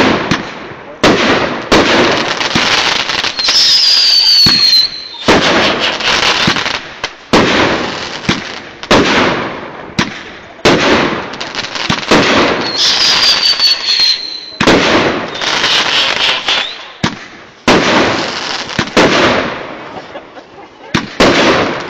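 Aerial fireworks going off in quick succession, a sharp bang about once a second, each trailing off in crackle. A whistle falling in pitch sounds twice.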